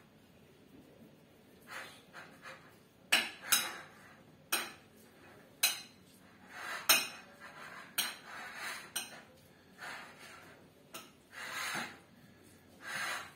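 A metal tablespoon stirring grated carrot salad with mayonnaise in a plate: irregular clinks and scrapes of the spoon against the plate.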